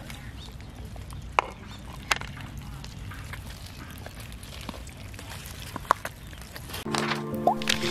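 Many cats and kittens eating raw chicken from a metal bowl: a few sharp clicks and smacks of feeding over a low steady background. Music starts near the end and is the loudest part.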